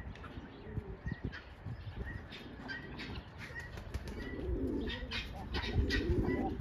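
Domestic pigeons cooing, the low rolling coos starting about two-thirds of the way in, over brief high chirps and clicks from the birds throughout.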